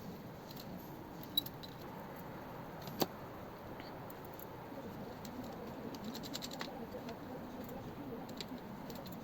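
Small metal clicks and light jingling of copper motherboard standoffs being handled and screwed into a PC case, with one sharper click about three seconds in.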